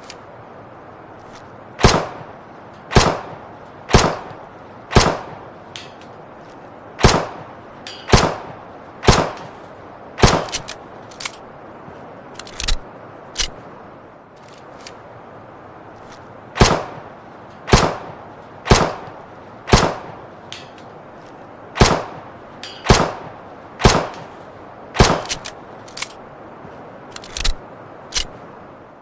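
Luger pistol fired in single shots about a second apart, in runs of about four, with a few fainter sharp sounds between the runs and a steady hiss underneath.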